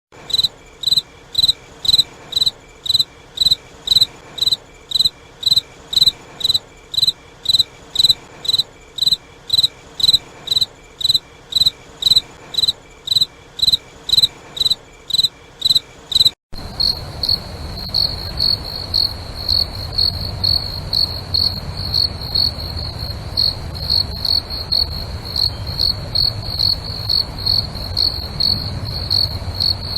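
Crickets chirping in a regular pulse of high chirps, about two a second, clear and well spaced. About halfway through the recording cuts abruptly to a second one, with chirps at a slightly higher pitch over a steady low rumble and background noise.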